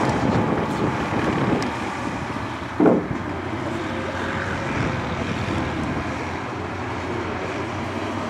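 T-55 tank's V12 diesel engine running as the tracked vehicle drives along a sandy track, a steady rumble with wind on the microphone. A short loud thump comes about three seconds in.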